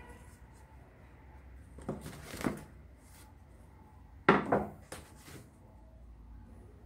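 Thin spiral-cut wooden disc, the body of a collapsible fruit basket, handled and laid down on a board. There are two short bouts of wooden clatter and knocking about two seconds apart, the second the louder, then a lighter tap.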